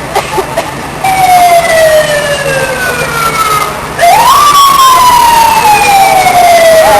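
Fire engine siren wailing: a loud tone starts about a second in and falls slowly, then about four seconds in climbs quickly and falls slowly again.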